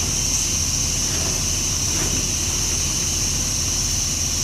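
Steady low rumble like an idling engine under a continuous high chirring of crickets, both even throughout with no distinct clicks.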